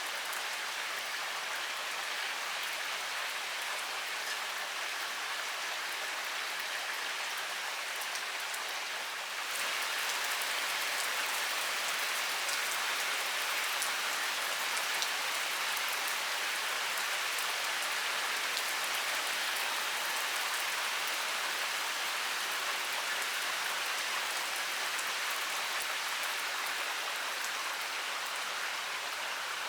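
Heavy rain pouring steadily, a dense hiss of many drops, growing a little heavier about a third of the way in.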